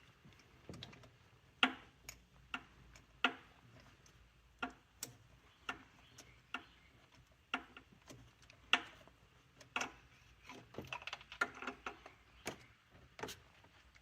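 Hand tools clicking and tapping against metal in an engine bay: a dozen or so sharp, separate clicks at uneven gaps, while a spark plug is being worked out of the engine.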